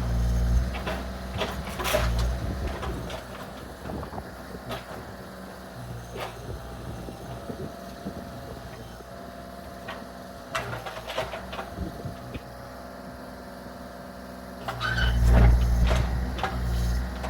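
Bobcat compact excavator's diesel engine running, with scattered knocks and clatter of demolition debris. The engine gets louder about fifteen seconds in as it works harder.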